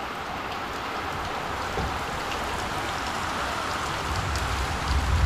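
Steady rain falling on a tiled roof and wet paved courtyard, growing heavier, with scattered drips. A low rumble builds near the end.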